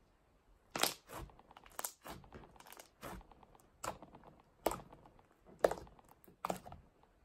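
Icy-jelly mix slime being squished and poked by hand, giving a series of sharp crackling pops about once a second.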